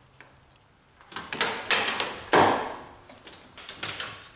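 Intercooler piping and its silicone coupler being worked off the throttle body by gloved hands: after a quiet first second, a string of short scuffs and knocks, the loudest about two and a half seconds in, then a few lighter clicks.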